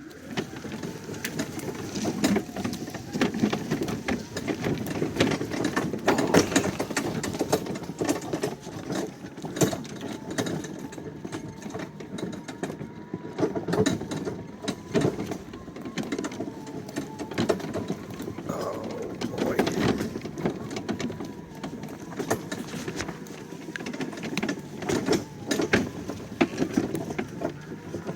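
Greenworks electric riding lawnmower on the move: the electric drive motor whines steadily at a high, slightly wavering pitch, under constant irregular rattling and knocking from the mower and its towed wagon of firewood.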